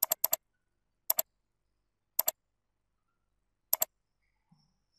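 Computer mouse button clicks: a few sharp clicks, each a quick press-and-release pair, spaced a second or so apart, with silence between.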